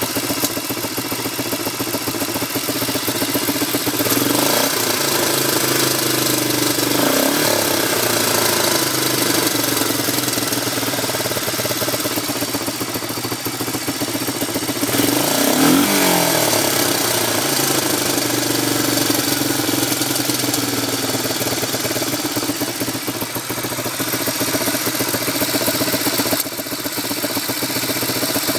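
1987 Honda ATC 250SX single-cylinder engine running at idle and blipped up and back down about three times, near the start, about a third of the way in, and past the middle. The owner hears a metallic pinging and knocking from the engine toward the top end, though it may not stand out.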